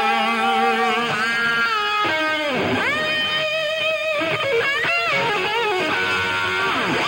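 Guitar music: sustained notes that bend and slide in pitch, several wavering with vibrato.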